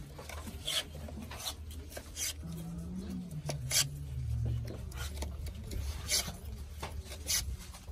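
A wooden rod rubbing and scraping inside cardboard firework tubes as it pushes paper discs down into them. It makes short, irregular scraping strokes about every half second to a second, over a low steady hum.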